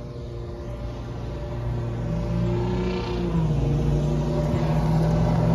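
An engine running with a steady hum, growing louder as it comes closer; its pitch shifts about three seconds in.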